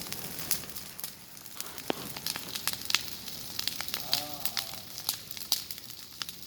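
Fire burning through jungle vegetation: a steady hiss with irregular sharp crackles and pops.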